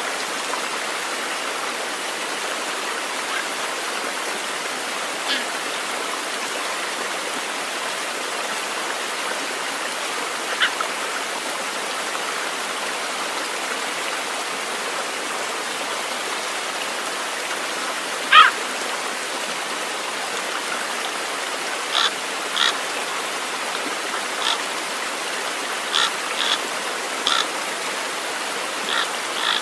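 Steady rush of a stream. Over it come a dozen short, high chirps: a few scattered ones, the loudest about 18 seconds in, then a quick run of them over the last eight seconds.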